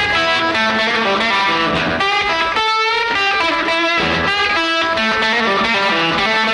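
Rock music soundtrack led by a distorted electric guitar playing a riff, with the bass dropping away for about a second around the middle.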